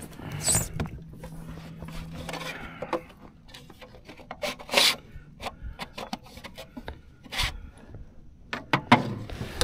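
Irregular scraping, rubbing and sharp knocks on a plastic fishing kayak as a catch board is laid down and a landed bass is handled on it. A low steady hum runs under the first three seconds.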